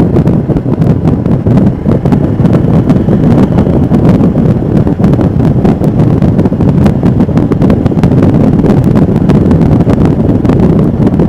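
Wind rushing and buffeting on the microphone of a moving motorcycle, with the 2021 Royal Enfield Himalayan's single-cylinder engine running underneath.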